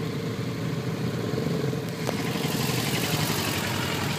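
Motorcycle engines running steadily at low speed over a rough dirt road, with a single sharp click about two seconds in.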